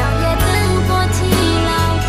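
Song music: a steady beat over held chords and a strong bass line.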